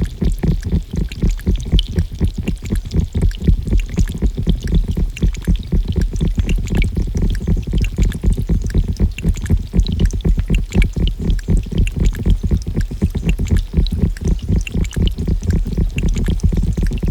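Water pouring and gurgling in a dense, rapidly fluttering burble, its weight deep and low, with fine drip-like ticks above it.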